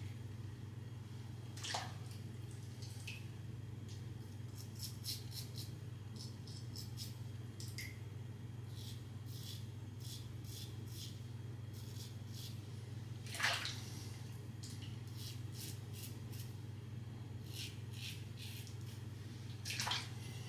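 Mühle R89 safety razor scraping through lathered stubble in short strokes: quick runs of crisp scratches, with a few louder swishes about two seconds in, in the middle and near the end.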